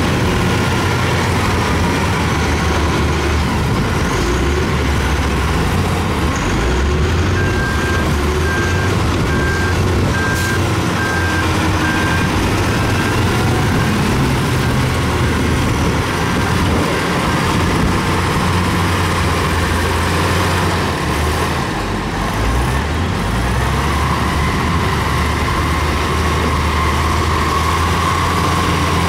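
Heavy diesel earthmoving machines, a bulldozer and excavators, running steadily under load with small changes in engine speed. From several seconds in until about halfway, a back-up alarm beeps at roughly one and a half beeps a second.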